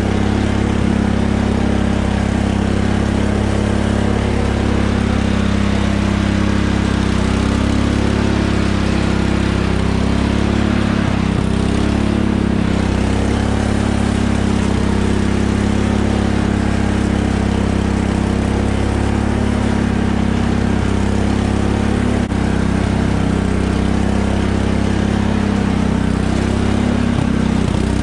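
Cub Cadet riding lawn tractor's engine running steadily as the tractor drives along.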